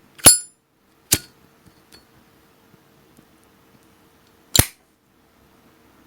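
Zippo lighter's metal lid clicking open and shut: three sharp metallic clinks with a brief ring, the last a few seconds after the first two.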